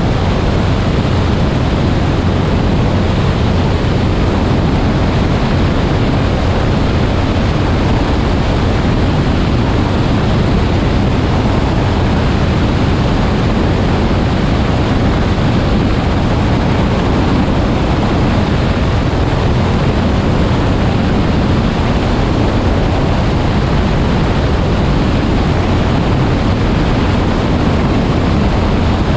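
Steady, loud rush of wind on the microphone of a camera mounted on an airplane climbing out after takeoff, with the airplane's engine noise blended into it. It stays even throughout, with no separate events.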